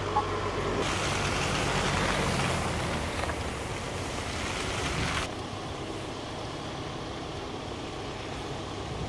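Cars driving through deep slush: engine hum with tyres churning through wet snow. A loud slushy hiss from the tyres lasts a few seconds and cuts off abruptly about five seconds in, leaving a quieter steady rumble.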